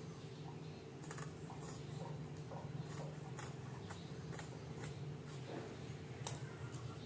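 Large tailoring scissors snipping through cotton blouse fabric, a short crisp snip about every half second, over a steady low hum.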